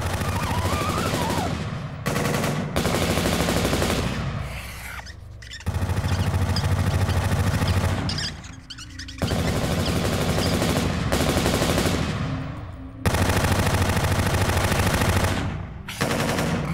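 Automatic gunfire, several long bursts of rapid shots, each lasting two to three seconds, with short pauses between them.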